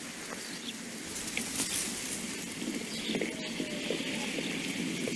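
Steady hiss with scattered faint crackles, the surface noise of a worn old film soundtrack.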